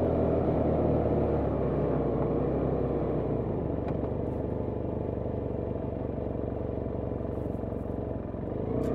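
BMW F800GT motorcycle's parallel-twin engine running steadily while riding along, mixed with wind rush on the microphone.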